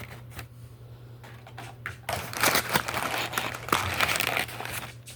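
Packaging crinkling and rustling as a wrapped item is handled out of a box. A few light clicks for the first two seconds, then busy crinkling from about two seconds in.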